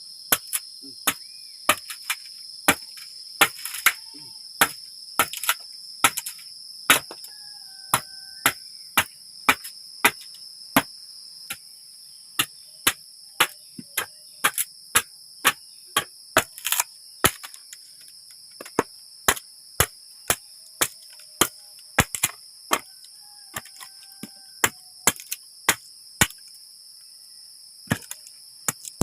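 Wood being chopped in quick, sharp strikes, about two a second with a couple of short pauses, while kindling is cut to make a fire. A steady high-pitched chorus of crickets carries on underneath.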